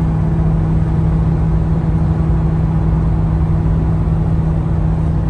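Steady in-cabin drone of a Mercury Grand Marquis V8 cruising at about 120 km/h on cruise control: an even low engine hum under tyre and road noise.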